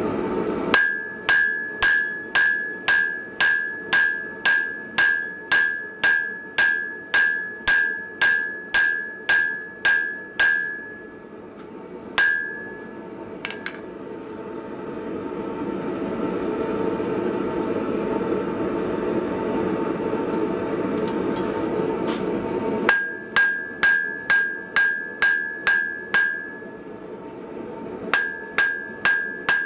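Blacksmith's hand hammer striking red-hot spring steel on an anvil to forge a woodworking chisel: runs of blows about two a second, each leaving the anvil ringing at one clear pitch. The hammering breaks off for about ten seconds in the middle, leaving a steady low rushing noise, then starts again.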